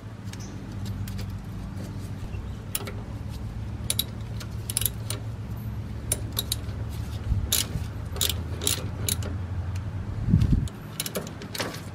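Socket ratchet clicking and metal tools clinking as a bolt on the sensor wiring bracket is worked, in scattered sharp clicks. A steady low hum runs beneath and stops near the end, just after a dull thump.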